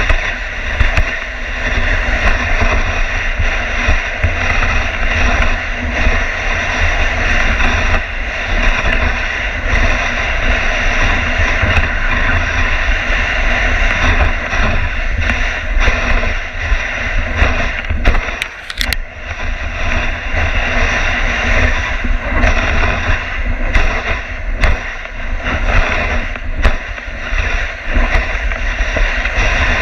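Dog sled runners hissing and scraping over snow as a dog team pulls the sled, with wind rumbling on the camera microphone and a few sharp knocks from bumps in the trail.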